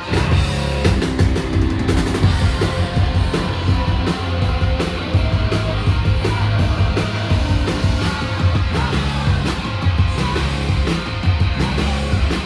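Live alternative rock band playing loud and full: distorted electric guitar, a steady bass line and driving drums.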